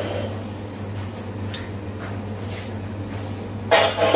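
Steady hum of a commercial gas wok range, with a few faint clinks, then a loud clatter of steel kitchen utensils near the end.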